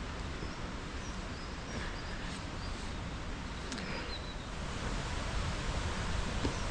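Steady rush of a woodland waterfall and stream, with a small bird giving a few short, high chirps a second or so in.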